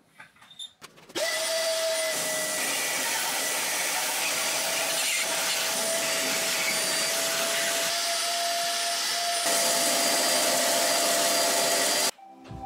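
Band saw cutting a thick oak slab: a loud, even rush of cutting with a steady whine from the machine. It starts about a second in, after a few light knocks of wood being handled, and stops abruptly near the end.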